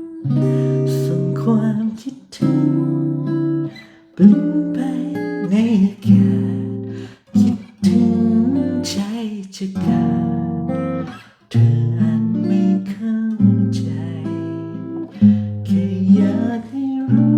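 Acoustic guitar playing a reharmonized arrangement, with a chord struck every second or two and left to ring under a plucked melody line.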